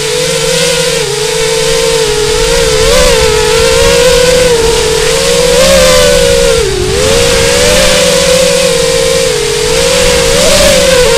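FPV quadcopter's motors and propellers whining, the pitch rising and dipping with throttle changes, with rushing wind noise underneath.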